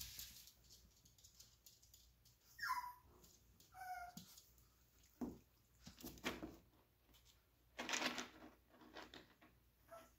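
A puppy gives a short whine that falls in pitch, then a brief yip a second or so later. After that come faint scratching and rustling sounds as the puppies move about on the pee pad and the wood-pellet litter.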